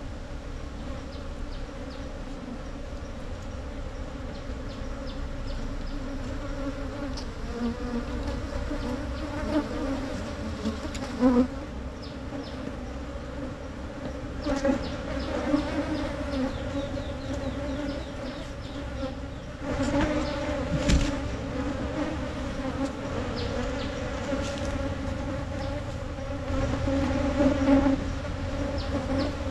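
Wild honey bee colony buzzing steadily as its nest in the earth is dug open, a constant hum with a few louder scrapes and knocks from the blade in the soil now and then.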